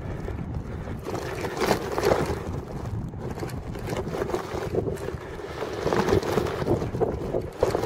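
Wind buffeting the microphone of a bicycle rider's camera, with the tyres crunching over sand-covered paving and a few bumps and rattles.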